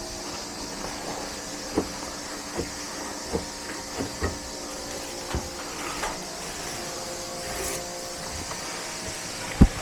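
Air-conditioner cleaning equipment running with a steady hiss over a machine's steady hum. Light knocks and clacks come every second or so, with a louder knock near the end.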